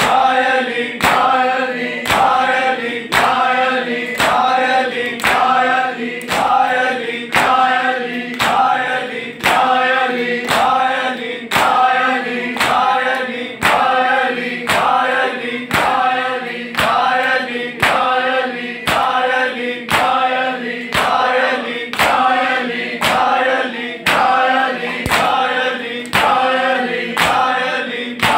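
Matam: a group of men beating their bare chests with open hands in unison, one sharp slap about every second, while male voices chant a noha between the strokes.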